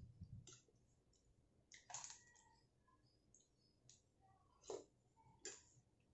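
Faint, scattered clicks of a metal spoon and fork against a ceramic bowl, about five over the few seconds, the loudest about two seconds in and just before the end, after a soft slurp of noodles at the very start.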